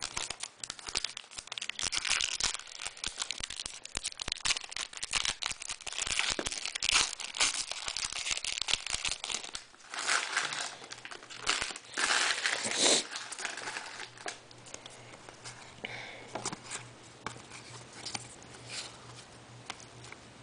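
Foil trading-card pack wrapper being torn open and crinkled, a dense crackling with its loudest bursts a little past the middle, then softer rustling of the wrapper and cards.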